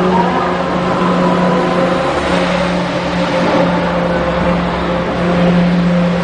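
Car engine running at steady revs inside a road tunnel, a constant low note over a broad rushing noise.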